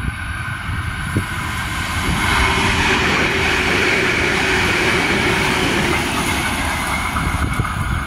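Adelaide Metro 4000 class electric multiple unit passing close by the platform. Its rail and running noise swells from about two seconds in, holds through the middle and eases off near the end as the train draws away.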